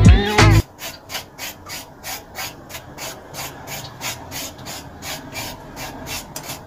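Vegetables being peeled by hand: quick, even rasping scrapes, about three a second. Music plays briefly at the start and cuts off.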